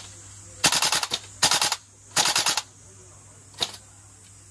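Tokyo Marui AKM gas blowback airsoft rifle firing three short full-auto bursts in quick succession, each a rapid string of sharp cracks from the gas-driven bolt cycling, then one single shot near the end.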